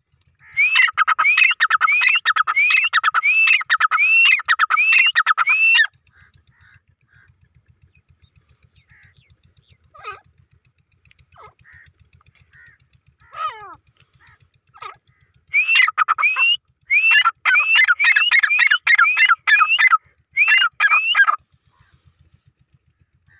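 Grey francolin calling: a rapid series of loud, ringing, rising-and-hooked notes, a few per second. The first bout runs about six seconds. It is followed by a few softer falling notes, then a second bout about fifteen seconds in.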